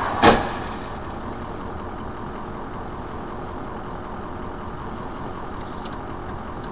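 A single loud crash about a third of a second in as an SUV strikes a sedan, followed by the steady engine hum of a stopped car heard from inside its cabin.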